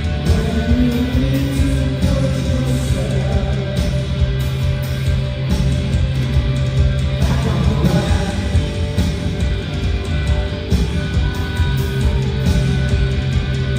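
A live rock band plays: electric guitars and bass over drums, with a held low bass note and a few sliding guitar notes.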